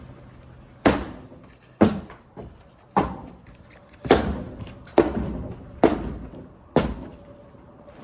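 Seven heavy hammer blows, about one a second, with a lighter knock between the second and third, striking stuck wood framing during demolition. Each blow is sharp and dies away quickly.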